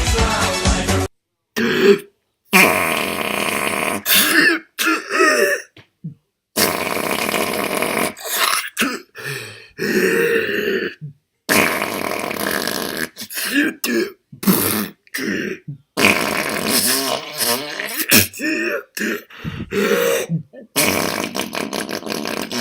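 A person's voice making a string of improvised comic mouth sound effects, standing in for factory machinery, in short irregular bursts with brief silent gaps. Pop music cuts off about a second in.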